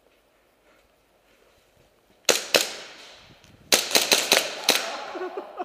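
Airsoft guns firing: two sharp shots in quick succession, then after a short pause a rapid string of about five shots.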